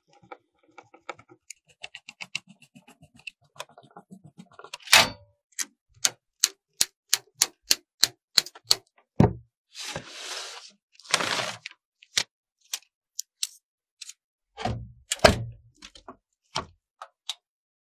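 PC assembly sounds: faint ticks of a screwdriver driving case-fan screws, then a quick run of sharp snips as side cutters trim cable ties. Two short rasps follow, then a few knocks and clicks as the graphics card is seated.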